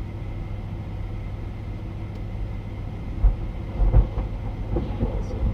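Steady low rumble of a vehicle on the move, with a few short low thumps from about three seconds in.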